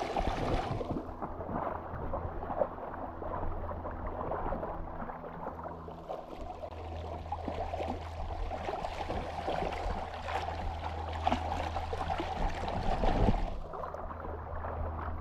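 Splashing and sloshing of legs wading through a shallow, rocky river, with the river's running water under it. The splashing comes and goes, heavier in the second half.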